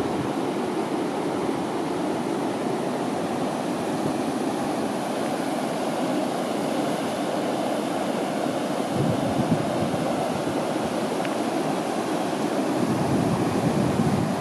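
Steady rush of river water pouring over a low weir, with wind gusting on the microphone a little past halfway and again near the end.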